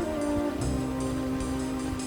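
Background music with sustained notes over a light, steady beat.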